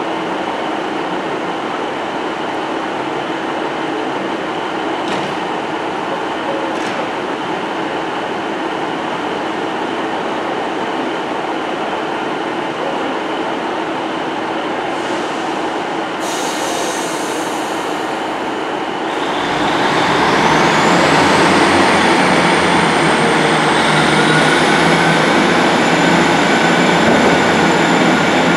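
Northern diesel multiple unit running at the platform with a steady rumble and hum. About two-thirds of the way through its engines open up and it gets louder as it starts to move off, with a whine that rises in pitch and then holds steady.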